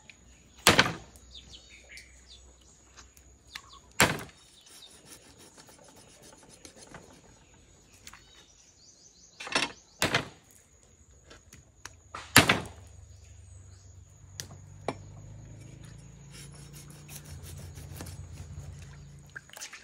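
A few sharp knocks of a cleaver and fish on a wooden stump chopping block, then a steady scraping of a knife working over a fish on the block from about two-thirds of the way in.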